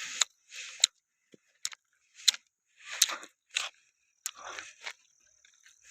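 Irregular crunching and rustling with sharp clicks, roughly one every half second to a second.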